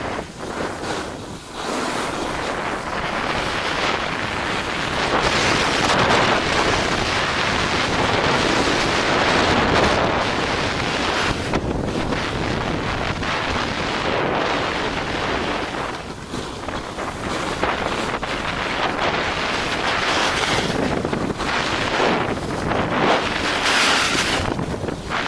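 Wind rushing over the microphone of a camera moving downhill on a ski slope: a loud, steady rushing noise that swells and dips briefly a few times.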